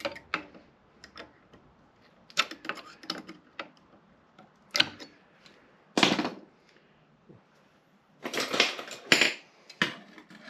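Metal clicks, clinks and short scrapes of hand tools working a brake caliper retaining spring into its groove on a disc brake assembly, with a longer burst of scraping about eight seconds in.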